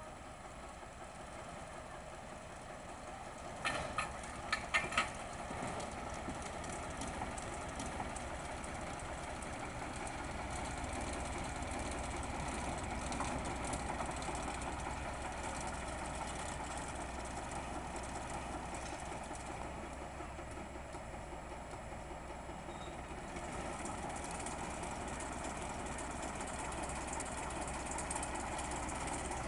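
Miniature park train running past on its narrow-gauge track: a steady engine hum with the rumble of wheels on the rails, and a quick run of sharp clicks about four seconds in.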